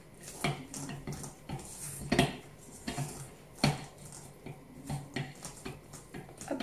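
Spatula stirring bread dough in a metal mixing bowl: irregular knocks and scrapes of the spatula against the bowl, about once or twice a second.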